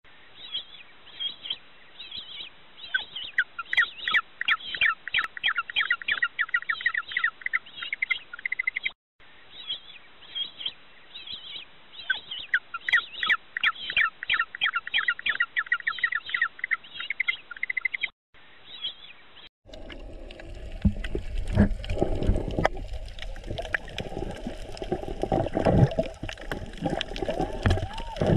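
Bird calls in fast trains of high chirps, the same stretch of calling heard twice with a short break between. About twenty seconds in it gives way to underwater sound: water rushing and bubbling.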